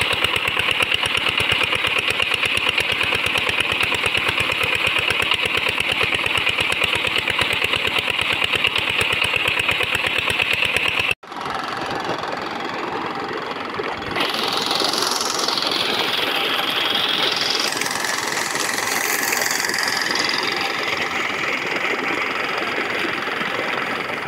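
Old diesel engine running a belt-driven irrigation water pump, with a fast, even beat. About eleven seconds in it breaks off suddenly, and a steady rush of water pouring from the pump's outlet pipe into a channel takes over.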